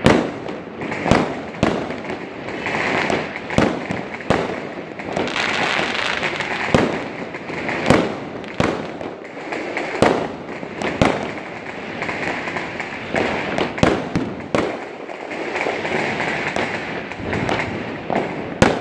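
Diwali firecrackers and aerial fireworks going off across a city: irregular sharp bangs roughly one a second, some close and some farther away, over a continuous hiss of distant crackers that swells and fades.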